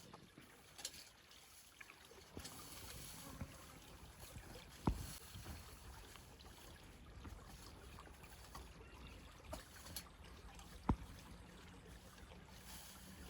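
River water running and splashing, with scattered small clicks and two sharp knocks, about five and eleven seconds in.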